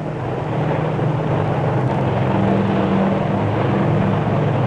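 Steady engine drone with a low hum, slowly growing louder and easing off slightly near the end.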